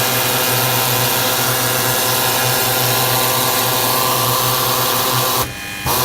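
Ball surface peen sanding machine running in its automatic cycle, with a steady motor hum and machine noise. The sound cuts out briefly near the end, then returns.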